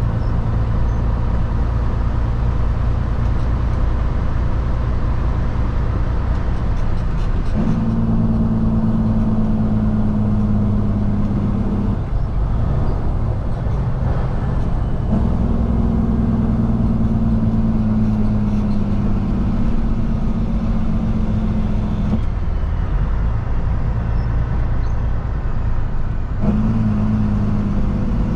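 Kenworth W900L semi truck's diesel engine heard from inside the cab while driving, working through the gears: a steady low drone with a stronger engine tone that cuts out briefly twice as gears are changed, then comes back.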